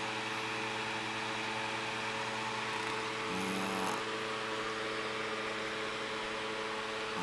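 Sleeping puppy gives one short snore about three seconds in, over a steady whirring hum.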